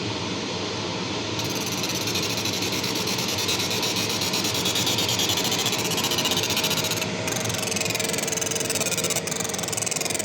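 Raycus 50 W fiber laser marking machine at work: steady fan and machine noise, with a high, finely pulsing buzz that starts about a second in as marking begins, breaking off briefly twice near the end.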